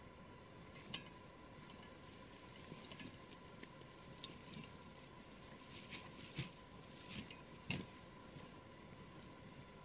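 Faint, scattered rustling and handling noises: gear being handled and packed into a backpack, with a few short knocks and crinkles.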